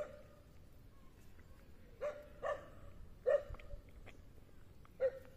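Short animal calls, five in all at uneven intervals, each a brief call on one steady pitch.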